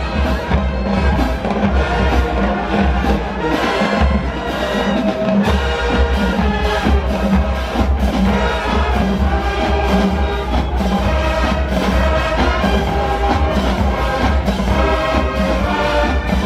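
HBCU marching band playing: brass horns over a steady drumbeat with heavy low bass. The bass drops out briefly about four seconds in, then comes back.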